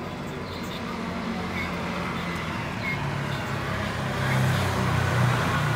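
Low rumble of road traffic, like a vehicle engine running nearby, growing louder in the second half.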